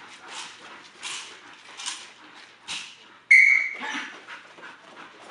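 Belgian Malinois giving one short, sharp, high yelp about three seconds in as it breaks from its down to chase the decoy. Before it, a steady run of swishing strokes, the decoy's bite suit as he runs off.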